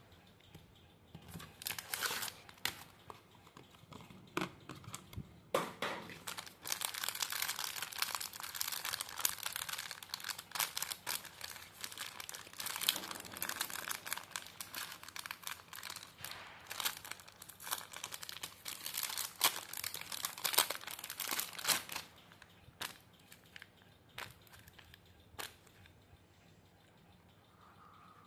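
Paper crinkling and tearing as a handmade paper package is opened and handled. The crackle is dense and continuous from about six seconds in until about twenty-two seconds, with scattered single crinkles and taps before and after.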